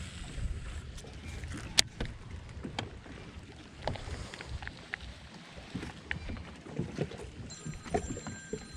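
Low, uneven rumble of wind and water around a bass boat, with scattered light clicks and knocks from handling a baitcasting rod and reel; the sharpest click comes about two seconds in.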